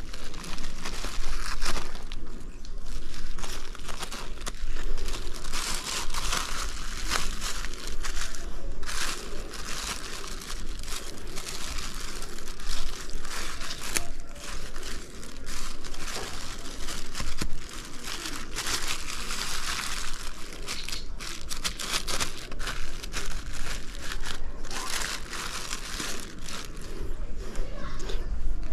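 Plastic bag crinkling and rustling in irregular bursts as it is handled.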